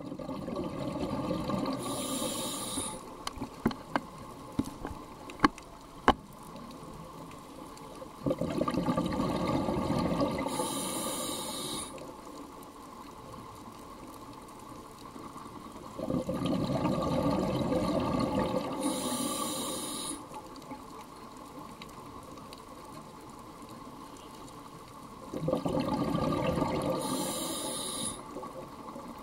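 A scuba diver breathing through a regulator underwater: four long gushes of exhaled bubbles about every eight to nine seconds, each with a short hiss near its end. A few sharp clicks come a few seconds in.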